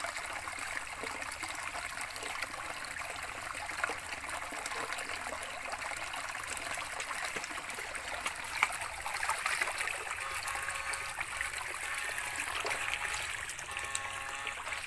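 Shallow stream trickling over stones, with irregular small splashes and sloshes of feet wading through the water.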